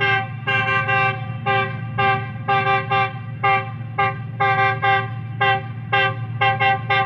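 Pakistan Railways GEU40 diesel locomotive's multi-note air horn sounding a long run of short chord blasts, about two a second in an uneven playful rhythm, over a steady low rumble.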